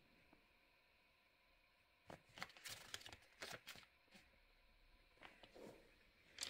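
Faint rustling of glossy magazine pages being handled, as a few short crinkles and rubs starting about two seconds in.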